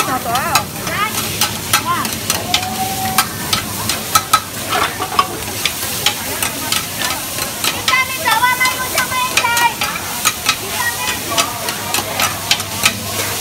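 Two metal spatulas scraping and clattering against a large flat wok over a steady sizzle, as cubes of radish cake and bean sprouts are stir-fried.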